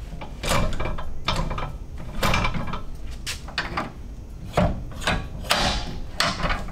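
Strut spring compressor being let off a coilover's coil spring: a series of short metallic clacks and rattles, roughly one a second.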